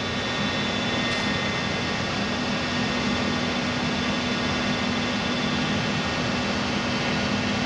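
Steady machine-shop drone: heavy industrial machinery running with a constant low hum and a few faint, steady high tones.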